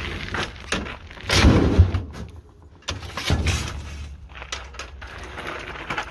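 A heavy fridge being set down off a steel hand truck: a loud, deep thud and clatter about a second and a half in, then a second, shorter thud. Small knocks and gravel crunches follow as the empty hand truck is handled.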